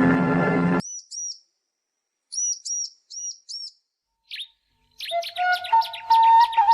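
Music cuts off suddenly under a second in, then small birds chirp in short groups of two or three notes with silent gaps between. About five seconds in a busier chorus of chirps starts over a steady, slightly wavering whistled tone.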